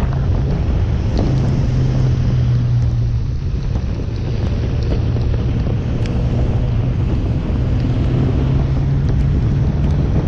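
Motorcycle engine running at a steady cruise, with a constant low hum, and wind rushing over the microphone.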